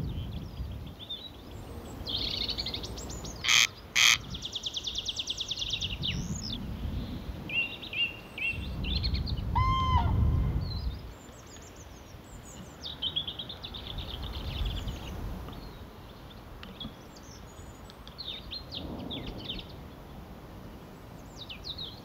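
Several wild birds calling and singing in short, varied phrases, including a rapid high trill early on and a clear pitched call about ten seconds in, over a low rumble that comes and goes in gusts. Two sharp clicks sound about three and a half and four seconds in.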